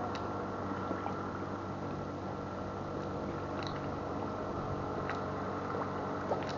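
Lakeshore ambience: small waves lapping at the rocks over a steady low hum, with a few faint ticks.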